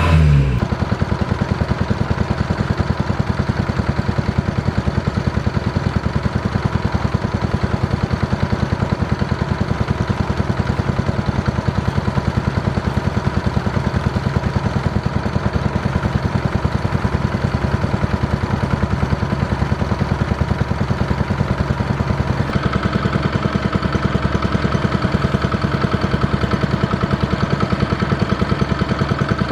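Kubota DC-70 Plus rice combine harvester running steadily, its diesel engine giving a fast, even beat. About 22 seconds in, a higher hum grows louder over the engine.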